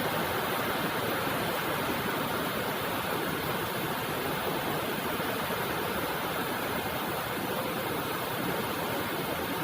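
Steady, heavy rainfall: an even, continuous hiss with no distinct drops or thunder.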